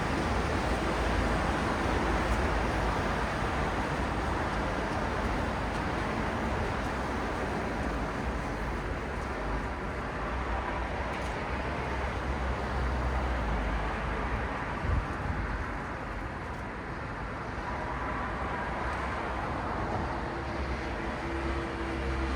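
Steady city road traffic: a continuous wash of car engines and tyre noise with a deep low rumble, swelling and easing as vehicles pass, and a brief knock about fifteen seconds in.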